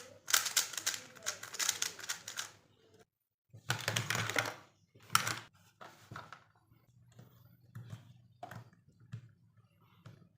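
Rapid clicking of a MoYu RS3M V5 magnetic 3x3 speed cube being turned. The clicks are dense for the first few seconds, drop out briefly about three seconds in, come back in a second dense run, then thin to scattered clicks.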